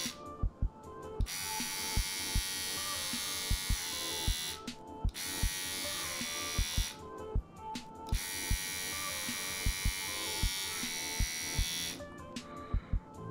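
TrimBuddy cordless hair trimmer running with a steady electric buzz, switched off and back on several times: it cuts out just after the start, around four and a half seconds, around seven seconds, and again near the end. Short low thumps are scattered throughout.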